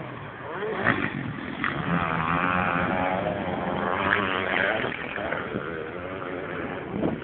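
Motocross motorcycle engines revving, their pitch rising and falling.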